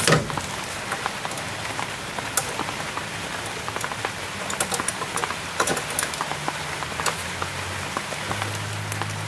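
Scattered small metallic clicks and taps of hand tools working the cotter pin out of the lower ball joint stud, over a steady rain-like hiss, with a low hum growing louder near the end.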